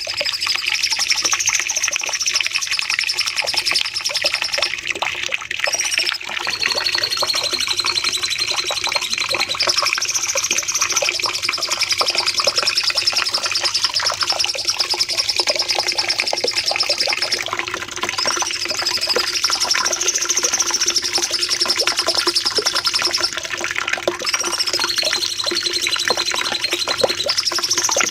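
Cucak cungkok singing in a long unbroken stream of rapid chattering notes, the loud continuous delivery bird keepers call 'nembak panjang', with a high warbling line that rises and falls every few seconds.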